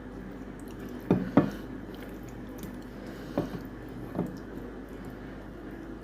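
Wet eating sounds of mutton curry and rice being eaten: four short, sharp squelching smacks, two in quick succession about a second in, then two more spaced out.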